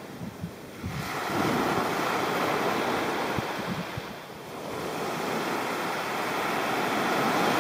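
Small waves washing up and back over a sandy beach, the surf swelling, easing off about four seconds in, then building again with the next wash.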